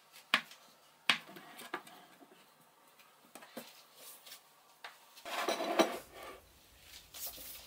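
Plastic dough scraper cutting through soft taro dough and knocking on a worktop in several short, sharp taps, with a louder scraping rustle about five seconds in.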